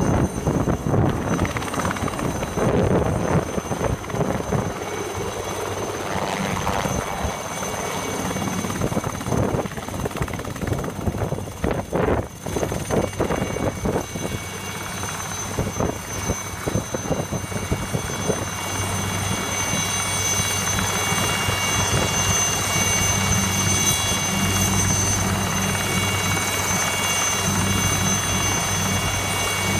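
Aérospatiale SA 315B Lama turbine helicopter landing and then running on the ground with its rotor turning. The first half is uneven, with gusts of downwash on the microphone. From about halfway it settles into a steady high turbine whine over the low beat of the rotor.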